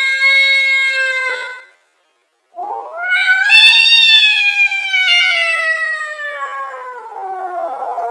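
Angry cat yowling: one long steady yowl ends a couple of seconds in, and after a brief pause a second long yowl rises and then slowly sinks in pitch, drawn out over more than five seconds.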